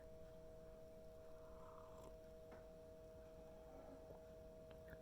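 Near silence: room tone with a faint, steady two-note hum.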